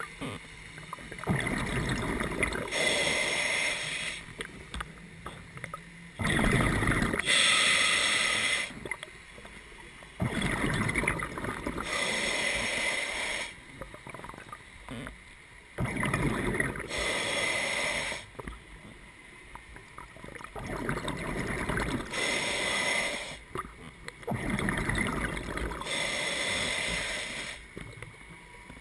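Scuba diver breathing through a regulator underwater: breaths drawn through the regulator and bursts of exhaled bubbles, in bouts about every four to five seconds.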